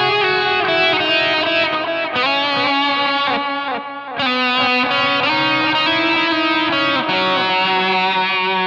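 Electric guitar playing heavy, distorted lead lines through stacked overdrive pedals (a Boss SD-1 into a Dry Martini) with a tape delay, the notes sustaining and bending. There is a brief break in the playing about four seconds in.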